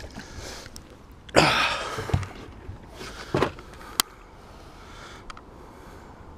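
A pike splashes into lake water as it is lowered over the side of a boat for release. There is a longer splash about a second and a half in, a shorter one near the middle, and a single sharp knock about four seconds in.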